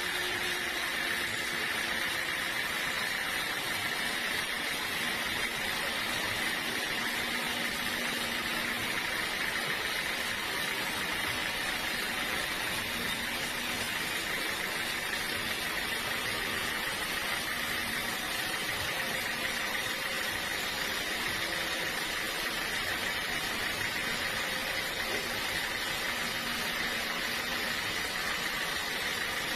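Sawmill machinery running steadily: an even, unbroken mechanical hum and hiss with no cuts or impacts standing out.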